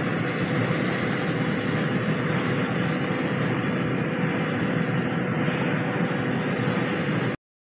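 Steady rushing hiss of compressed air from a sandblasting setup, with a faint steady hum underneath, cutting off suddenly near the end.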